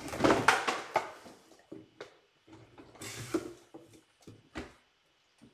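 Crinkling and rustling of trading-card packaging being handled and opened, loudest in the first second and again briefly about three seconds in, with scattered light clicks and taps between.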